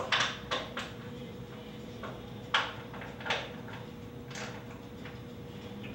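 Socket wrench on a 9/16 socket tightening the bed-rail bolts: about six short ratcheting bursts, three close together at the start and three more spread over the next few seconds, snugging the bolts up without overtightening.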